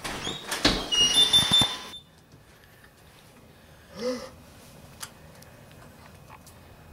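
A front door being unlatched and pulled open: clicks from the handle and latch with brief high squeaks, lasting about two seconds. About four seconds in, a short hum from a person's voice.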